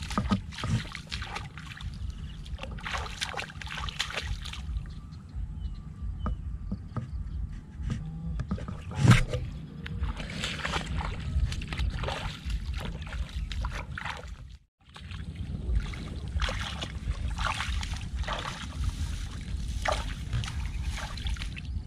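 Bare feet wading through ankle-deep water in a flooded grassy field, a steady run of sloshing, splashing steps over a constant low rumble.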